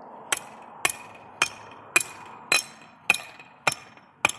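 Hammer blows driving a trap anchor stake into the riverbank, eight strikes at a steady pace of a little under two a second, each with a brief ring. The stake is being driven until it is set tight.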